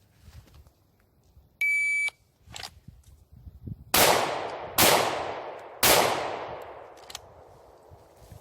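A short electronic beep, like a shot timer's start signal, then about two seconds later three handgun shots roughly a second apart. Each shot is loud and sharp, with a long echoing decay.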